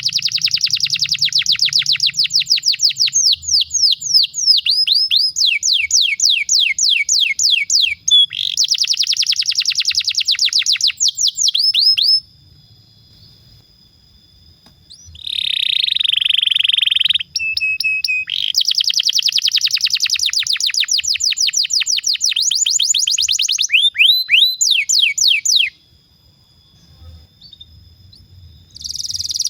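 Domestic canary singing a long rolling song: rapid trills of quickly repeated high notes, some falling sweeps and a buzzy phrase. The song breaks off twice for a few seconds.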